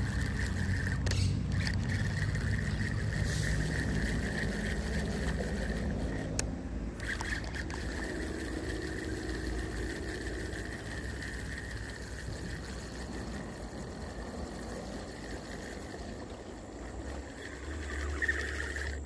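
Spinning fishing reel being cranked as a hooked fish is reeled in, over a steady chirring of crickets.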